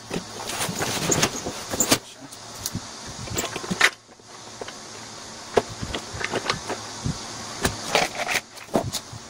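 Red plastic engine cover of a backpack engine blower being handled and fitted back over the engine: scattered plastic clicks, knocks and rattles.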